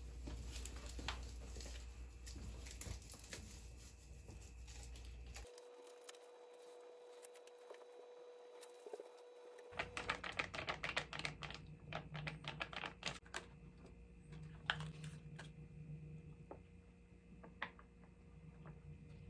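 Scattered light clicks, taps and rustles of hands handling things, with a dense run of clicking from about ten seconds in. About five seconds in, a cut brings a few seconds of near-quiet with only a faint steady tone.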